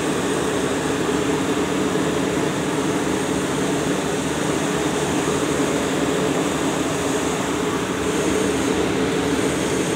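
Steady mechanical drone of construction-site machinery: a constant hum with hiss above it, unchanging throughout.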